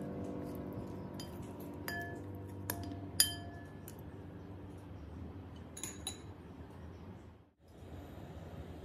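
Metal spoons clinking against a glass mixing bowl while stirring cauliflower florets in batter: several separate light taps with short ringing tones, the sharpest about three seconds in.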